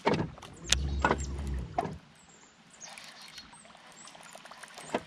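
Handling noise of a baitcasting rod and reel being cast from a small boat: several sharp knocks and a low rumble in the first two seconds, then a much quieter stretch as the chatterbait is reeled back in.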